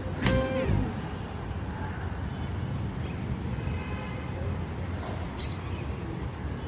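Steady low rumbling background noise. The tail of a passage of music fades out within the first second.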